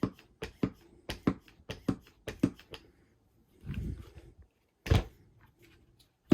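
Traxxas Mini Maxx RC monster truck being pushed down and let go on its suspension to check the shocks' rebound: a series of sharp plastic knocks, about two a second, then a scuffing sound and a single heavier thump near the end.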